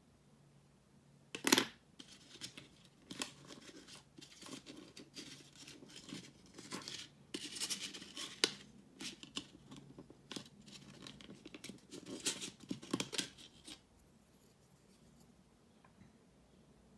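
Hands working on a netbook during a RAM swap: irregular plastic clicks, scrapes and rustling. A sharp click comes about a second and a half in, and the handling stops a few seconds before the end.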